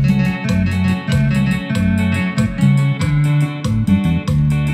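Loud dance music with guitar over a strong bass line that moves from note to note, kept on a steady beat.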